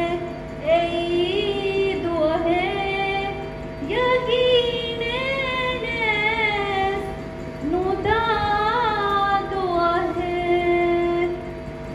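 A woman singing solo and unaccompanied into a microphone, in several long held phrases with wavering, ornamented pitch bends and short breaths between them. A steady faint tone runs underneath.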